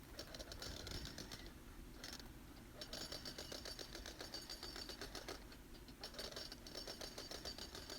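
Faint, rapid rattle of small impacts from a rotary hammer chipping at a crack in a gunite pool wall.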